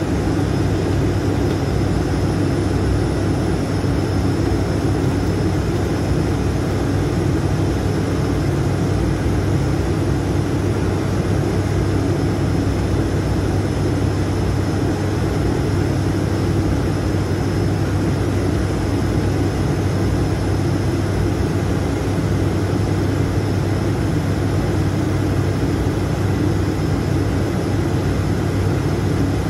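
Cockpit noise of an ATR 72-600's Pratt & Whitney PW127M turboprops: a steady propeller and engine drone with a strong low hum.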